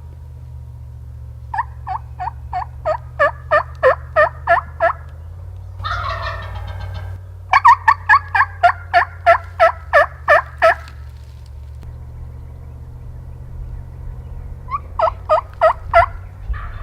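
Wild turkey yelping in three runs of evenly spaced notes, about three a second. A rapid rattling gobble comes about six seconds in, between the first two runs. A steady low hum lies underneath.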